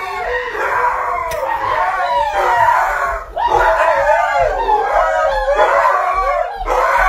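A dog howling in long, wavering howls, with a short break a little over three seconds in.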